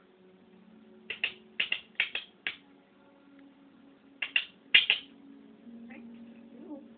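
African grey parrot giving short, sharp squawks or clicks in two quick runs: about five in the first couple of seconds, then four more about four seconds in. A faint steady hum runs behind them.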